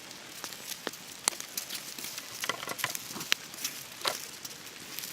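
Steady rain pattering, with scattered sharp irregular drip taps.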